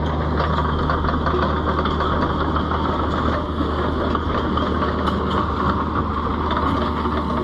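Kubota KX71 mini excavator's diesel engine running steadily with a constant low hum, with no clear rise or fall in revs.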